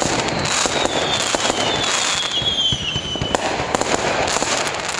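Fireworks going off: a sudden burst, then dense crackling of many small pops, with a thin whistle falling slowly in pitch over the first three seconds.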